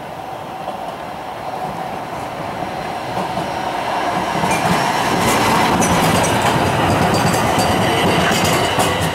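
Pittsburgh Siemens SD-400 light rail car approaching and passing close by, growing louder, with its wheels clacking irregularly over the jointed street-running rails from about four seconds in.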